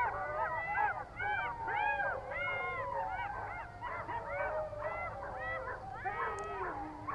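A pack of golden jackals howling in chorus: many overlapping wavering wails and high yips, each rising and falling in pitch.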